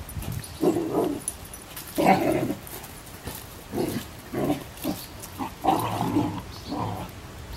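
Two dogs play-fighting, with short bursts of growling, about seven in a row.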